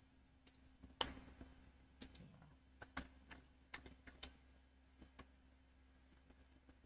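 Faint, irregular clicks of computer keys, about a dozen spread unevenly, over a faint steady electrical hum.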